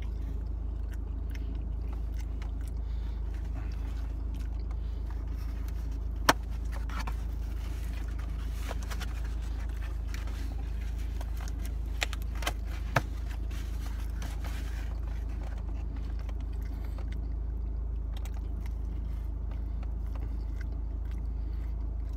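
Close-up chewing and biting of pizza, with small wet mouth sounds, over a steady low hum. A few sharp clicks cut through, one about six seconds in and three more around twelve to thirteen seconds.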